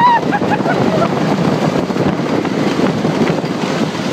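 Wooden roller coaster train running along its track, a steady rattling rumble mixed with wind buffeting the microphone. A brief high-pitched squeal rises and cuts off right at the start.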